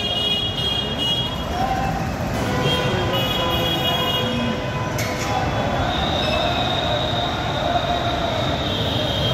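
Steady, loud din of traffic, with a high thin squeal that comes briefly about three seconds in and again as one long stretch from about six seconds in.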